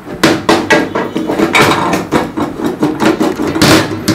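Metal clanking and knocking as a Mercedes-Benz power steering rack is set into a bench vise on a steel bench and the vise is wound tight: a quick, uneven run of sharp knocks, loudest near the end.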